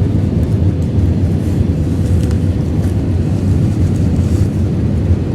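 Steady cabin noise inside an Airbus A320 on approach with flaps extended: a deep rumble of engines and airflow, with a faint steady hum above it.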